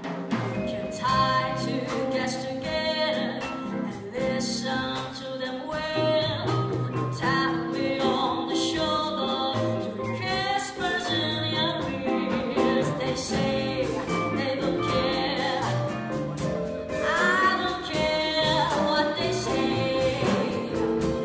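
Large jazz ensemble playing live, with a singer's voice over vibraphone, horns, guitars, double basses and drum kit keeping a steady beat of strokes.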